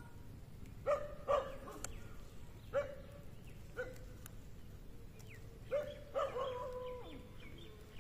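An animal giving short, repeated calls, each a high note that starts sharply and is held briefly, about seven at uneven intervals.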